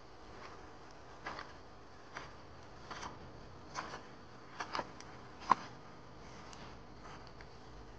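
Footsteps in sandals on a wet road: a series of light slaps at walking pace, about one a second, the loudest about halfway through, over a faint steady hiss.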